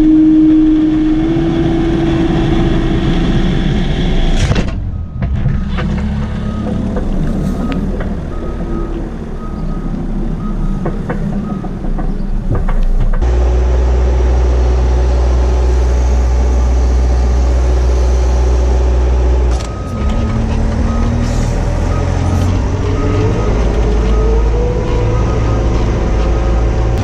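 Telehandler diesel engine running, heard from inside the cab, with a whine from the hydraulics at the start. A reversing alarm beeps at a steady pace in two spells as the machine backs away from the silage face, and the engine note rises near the end as it pulls away.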